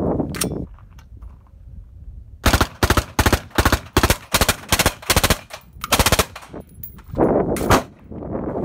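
Suppressed 10.3-inch AR-15 in 5.56 (M193) firing full-auto through a Thunder Beast DSU suppressor, in a string of short rapid bursts starting about two seconds in.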